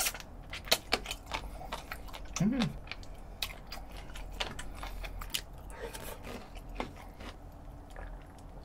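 Close-up chewing of crispy-coated fried chicken: many short, crisp crunches at an uneven pace, with a brief hummed "mm" about two and a half seconds in.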